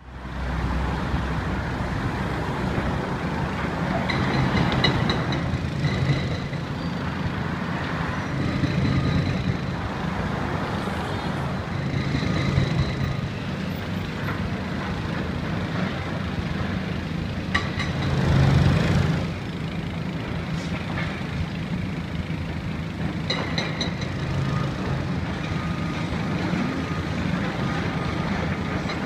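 Heavy demolition machinery working: a high-reach excavator's diesel engine running steadily, with repeated short high-pitched squeals and a louder surge about eighteen seconds in.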